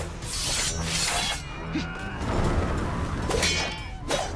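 Fight-scene sound effects: several whooshing sweeps and sharp impacts over dramatic background music.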